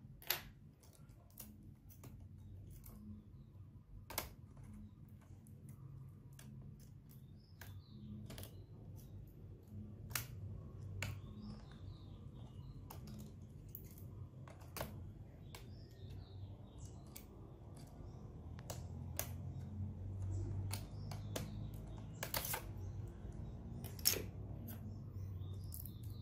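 Irregular small clicks and taps of fingers and a screwdriver handling the plastic and metal parts inside an opened laptop. Three sharper clicks stand out: right at the start, about four seconds in, and near the end.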